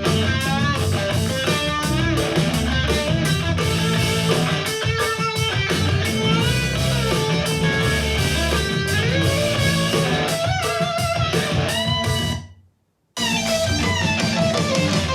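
Rock music with electric guitar and a heavy bass line played through a portable Bluetooth speaker. The music drops to silence for about half a second near the end, then starts again.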